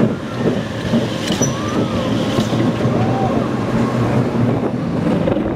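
Zierer Tivoli family roller coaster train running along its steel track, heard from onboard: a steady rumble and clatter of the wheels, with a couple of faint brief squeaks.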